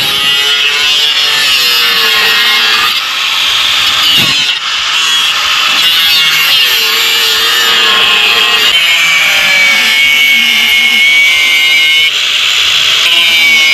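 Angle grinder running continuously against steel: a loud, high whine whose pitch sags several times as the disc is pressed into the metal and then recovers.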